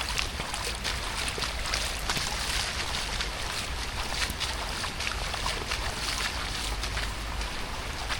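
Steady rain falling, with many single drops ticking sharply close by, over a low wind rumble.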